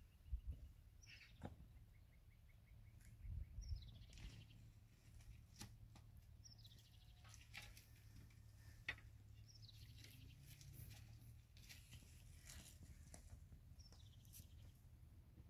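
Faint bird calls: short falling chirps repeated every few seconds, with a quick trill of repeated notes near the start, over scattered light clicks.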